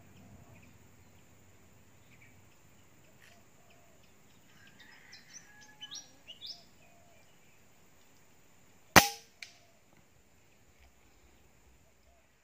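A single shot from a PCP air rifle: one sharp crack, with a fainter crack about half a second later. A few short bird chirps come a few seconds before the shot.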